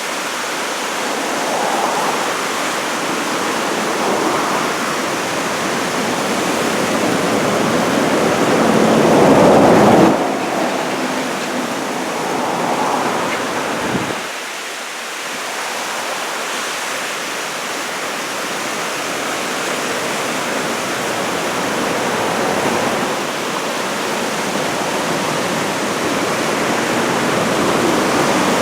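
Ocean surf from a typhoon swell, a continuous rushing of breaking waves. It swells to its loudest about ten seconds in and then drops away sharply.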